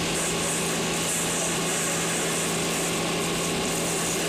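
A motor running steadily: a constant low hum under a dense hiss.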